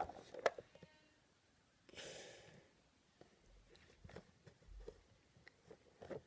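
Faint clicks and rustles of a clear plastic container being handled while the next small figure is picked out. A single soft breath sounds about two seconds in.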